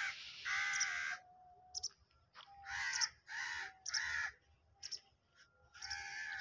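A crow cawing: harsh calls about half a second long, one about half a second in, a run of three close together around three to four seconds in, and another near the end.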